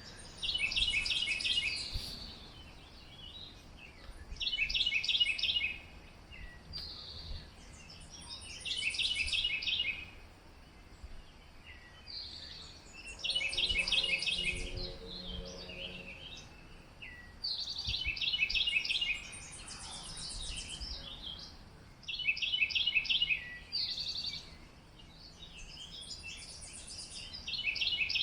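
A songbird singing at dawn, repeating the same short, rapid, high song phrase about every four seconds. A faint low call comes in about halfway through.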